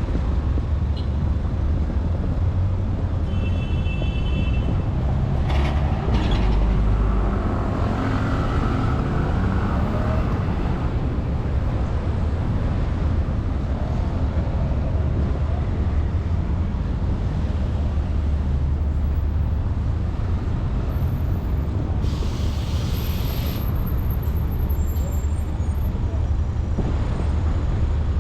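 City road traffic: a steady low rumble of passing cars and buses, with a short hiss of air a little past two-thirds of the way through.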